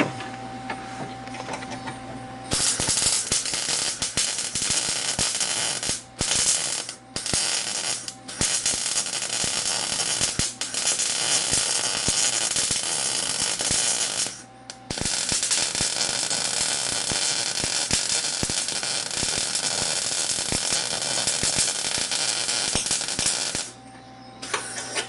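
Wire-feed welder crackling as holes in a rusty snowmobile chassis are welded shut: a first short bead with brief stops near 6, 7 and 8 seconds, a pause in the middle, then one long unbroken run that stops a little before the end.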